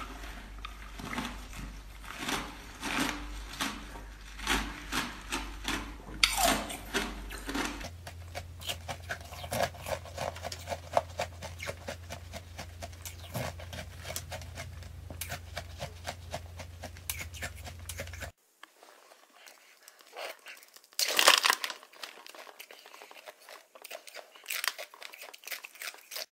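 Ice being bitten and crunched between the teeth close to the microphone: a run of sharp, irregular cracks and chewing crunches. The recording changes twice, at about 8 and 18 seconds in, as different takes follow one another.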